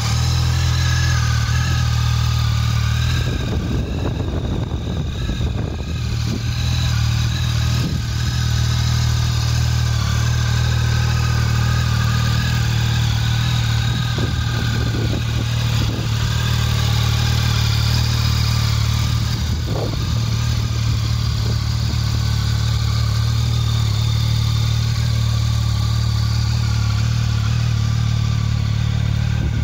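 Yamaha Tracer 900 GT's three-cylinder engine, fitted with an Akrapovic exhaust, idling steadily with a low, even note; the revs stay constant throughout.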